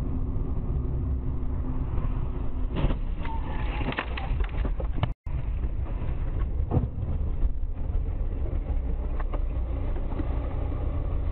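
A car driving, heard from inside through a dashcam: a steady low rumble of engine and road noise, with a few short knocks or rattles. The sound drops out for an instant about five seconds in.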